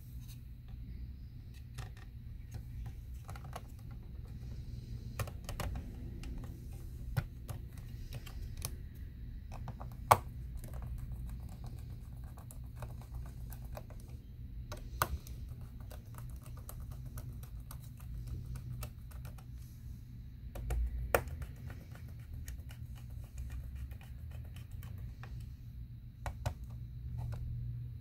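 Irregular small clicks, taps and light scrapes of fingers and a small Torx screwdriver fitting the plastic cooling fan and its screws back into a Mac Mini's aluminium case, with a sharper click about ten seconds in and another near twenty-one seconds, over a steady low hum.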